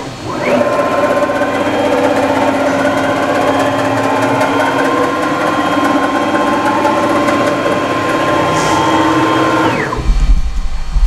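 CNC milling spindle spinning up, running at a steady speed with a whine of several tones, then winding down about ten seconds in. A brief loud low rumble follows near the end.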